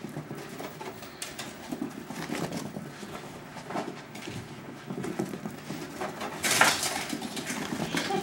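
A dachshund's running footfalls, quick irregular patters and scrabbles as she races laps around the room, with one louder noisy scuffle about six and a half seconds in.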